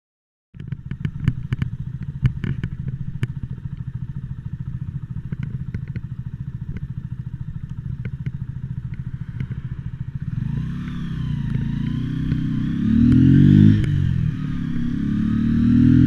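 Mutt Akita motorcycle's single-cylinder engine idling steadily, with sharp crackling clicks in the first few seconds. About ten seconds in it revs up and pulls away, its pitch rising, dropping briefly at a gear change, and rising again.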